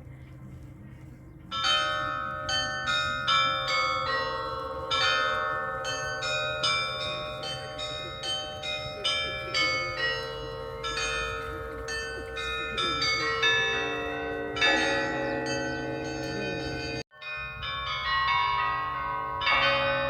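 Russian Orthodox church bells ringing: several bells of different pitches are struck in quick, overlapping succession, starting about a second and a half in. The ringing cuts out for a moment near the end, then carries on.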